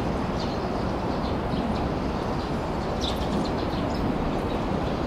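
Steady outdoor background noise, a low rumble and hiss with no speech, with a few faint short high chirps now and then.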